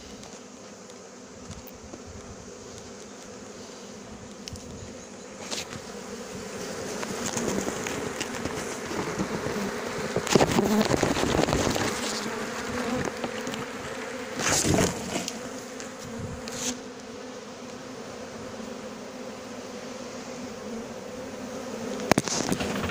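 Honeybees buzzing steadily as they fly around the hive, just shaken in from a cardboard box. Louder rustling and knocks from handling the box and hive come about ten seconds in and again around fifteen seconds.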